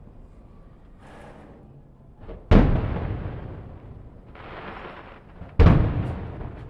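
Two aerial firework shells bursting with loud booms about three seconds apart, each followed by a long fading rumble of echo. A hissing burst is heard between them.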